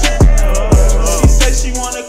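Hip-hop beat with three deep bass kicks about half a second apart, each ringing on in a long sustained bass tail, under a melody and no rapping.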